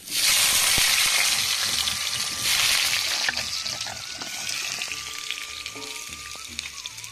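Potato pieces dropped into hot oil, sizzling loudly: the hiss bursts up at once, swells again about two and a half seconds in, then slowly settles, with small crackles throughout.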